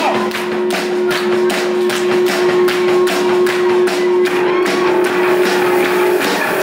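Live band playing, with drums keeping a fast, steady beat of about four hits a second. A long held note runs under the beat and stops about six seconds in.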